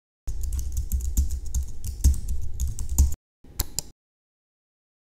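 Computer keyboard typing, a quick run of keystrokes lasting about three seconds, followed a moment later by a couple of quieter mouse clicks.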